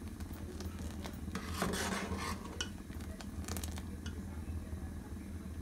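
Steel ladle stirring thick simmering milk and rice in a steel pot, scraping and clicking against the metal now and then, over a steady low hum. The rice is kept moving so it does not catch on the bottom of the pot.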